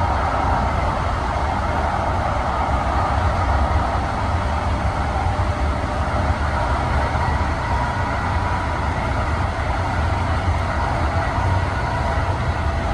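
Siemens SD660 light rail car heard from inside the passenger cabin while running: a steady low rumble with a thin, steady high whine over it.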